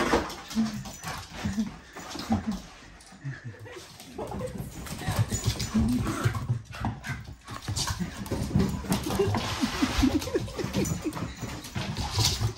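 Border Collie and Jack Russell terrier puppies play-fighting: a run of short yips and whines, thickest in the second half, with paws scrabbling on a laminate floor.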